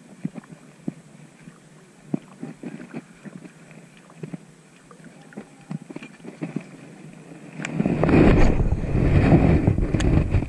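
Light, irregular ticks and clicks, then about eight seconds in a sudden loud gust of wind buffeting the microphone.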